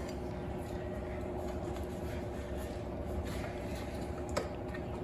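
Steady low background hum with faint light ticks, and one sharp click a little over four seconds in.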